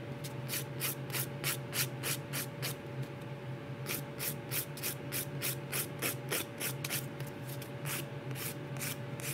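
Hand nail file rasping back and forth across a gel nail to grind the gel off, in quick even strokes of about five a second, with a pause of about a second near the three-second mark. A steady low hum from the nail-dust extractor fan runs underneath.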